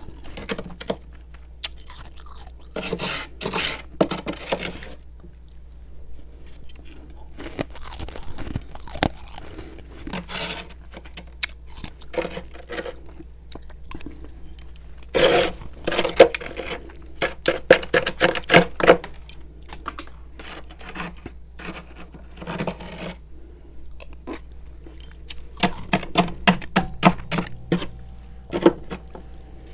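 Freezer frost being chewed and crunched in the mouth, in bursts of rapid crunches with quieter pauses between.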